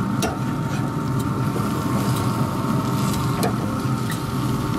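Steady low rushing noise with a faint steady whine, and a few light clicks of a metal spatula against the grill grates as the hams are lifted.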